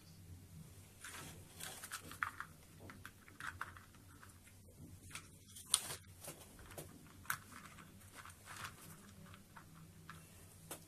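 Hard plastic toy train cars being handled and coupled on a plastic track: irregular light clicks, taps and rattles, with a couple of sharper clicks in the middle.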